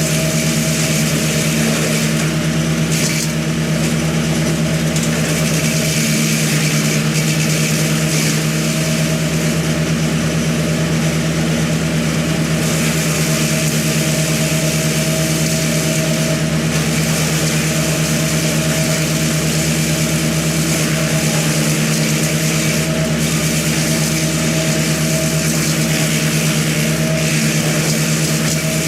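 An engine running steadily at a constant high speed, with no change in pitch.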